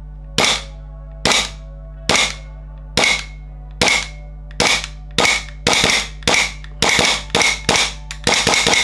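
Gas-blowback airsoft Glock pistol firing a string of single shots, its slide cycling with each one. The shots come about a second apart at first and quicken to about three a second near the end. Each crack carries a short metallic ring.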